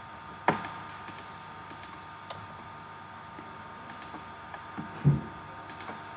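Computer mouse and keyboard clicks, several of them in quick pairs, as software is operated. A duller thump about five seconds in is the loudest sound.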